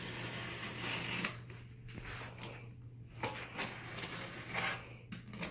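Cardboard shipping box being handled and opened: rustling and scraping with a few sharp knocks.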